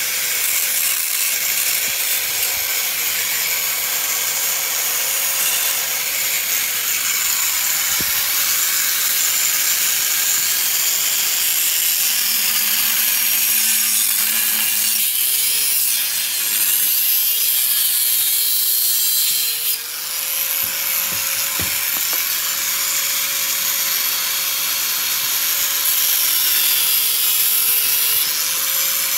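Handheld angle grinder cutting through a metal bicycle frame tube, running continuously with a harsh grinding hiss. The motor's pitch sags as the disc is pressed into the cut midway, then recovers, with a brief drop in level about two-thirds of the way through.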